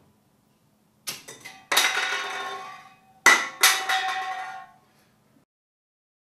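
A drinks can filled with methane and air exploding once the gas has burned down to an explosive gas-air mix: sharp metallic bangs, each followed by a ringing clang from the can that dies away within about a second, one pair of hits and then a second, louder pair.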